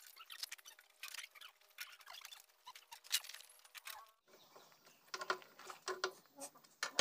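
Faint scattered metal clicks and taps as bolts and an inspection cover are handled on a Komatsu GD511-A motor grader's tandem chain-case housing. A faint steady hum runs under the first half and drops away at a cut about four seconds in.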